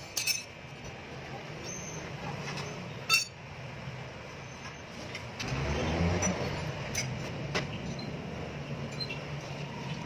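Sharp metallic clinks of hand tools against steel undercarriage parts, a handful spaced a few seconds apart, over a steady low hum. A louder rumble swells up a little past the middle and fades.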